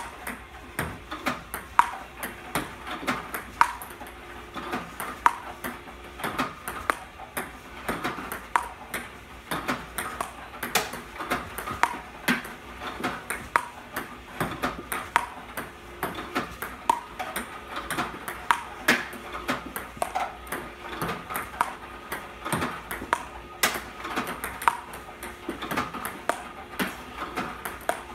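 Table tennis balls fed by an iPong Pro robot, bouncing on the table and hit back as backhands with a Stiga Pro Carbon carbon paddle: a steady run of sharp, hollow clicks, several a second.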